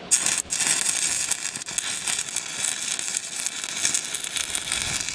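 Stick welder's arc crackling steadily as a 12 mm steel plate is welded into a steel boat's keel. The arc is struck just as the sound begins.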